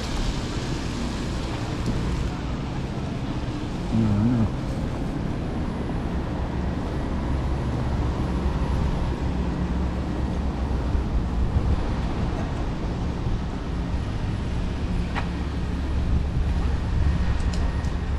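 City street ambience in the rain: a steady rumble of traffic and tyres on wet roads, with snatches of passers-by's voices.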